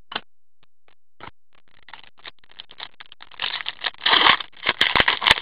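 A trading card pack's foil wrapper crinkling and tearing as gloved hands open it, with light clicks of cards being handled. Only a few faint clicks at first; the crinkling starts about three seconds in and is loudest near the end.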